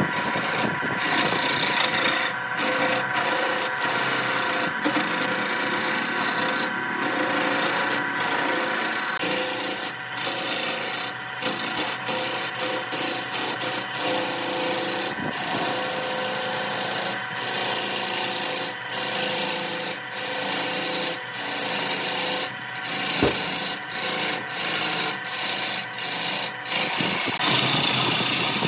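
Wood lathe running with a turning tool cutting into a large spinning wooden blank: a rough, steady scraping over the lathe's steady hum. The cut breaks off for a moment again and again as the tool leaves the wood.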